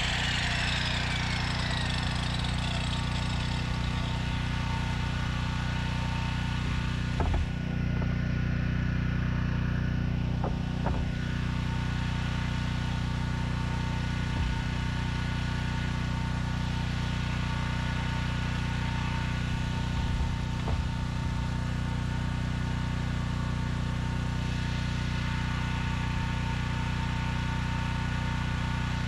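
A small engine or motor runs at a steady, unchanging speed as a constant drone. In the first couple of seconds a miter saw's blade whines down after a cut, and a few light knocks of wood being handled come around the middle.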